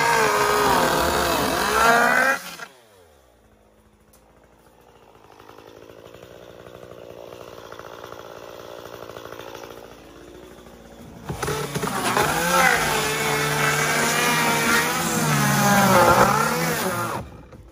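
Stihl chainsaw cutting into a hot tub's foam and shell at full throttle, the engine pitch wavering under load. About two and a half seconds in the revs fall away to a much quieter running sound, and past the middle the saw revs up again and cuts until the sound stops suddenly near the end.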